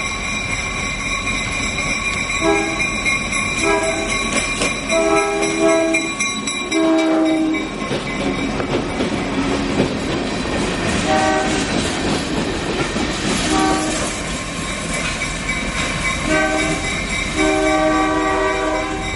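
Chicago SouthShore & South Bend GP38-2 freight locomotives street-running. The lead unit's multi-chime air horn sounds about eight warning blasts for the street crossings, mostly short with a longer one near the end. Between the blasts the gondola cars rumble and clatter past on the street track.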